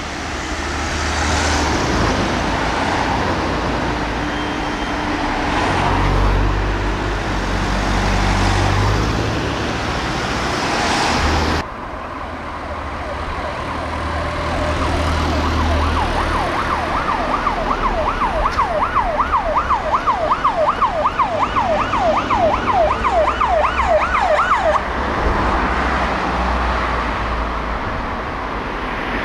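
Road traffic and a passing heavy vehicle's engine rumbling, then, after a sudden cut, an emergency car siren on a fast yelp, about three sweeps a second, for roughly ten seconds before it stops near the end.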